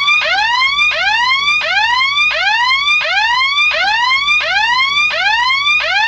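Electronic alarm siren sounding a fast whoop: one rising pitch sweep about every 0.7 s, each cutting off and starting again from the bottom, repeated evenly.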